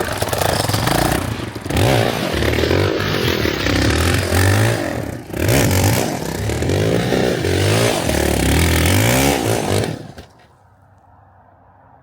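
Motorcycle engine revved hard again and again, the pitch climbing and falling back several times, with a rattly edge. It drops away about ten seconds in. The bike is one that a rider has just said has an exhaust leak.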